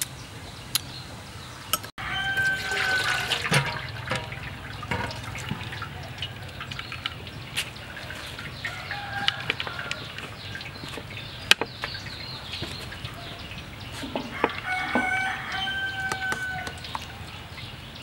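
A rooster crowing twice, one drawn-out call about two seconds in and another near the end. Light clicks and clinks of utensils on a dish come in between.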